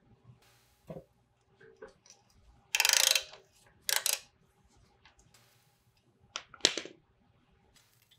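Metal clicks and clattering of hand tools and brake hardware against a rusty drum-brake backing plate as the parts are worked loose. Two louder scraping bursts of a few tenths of a second come about three and four seconds in, and another cluster of clicks and scraping near seven seconds.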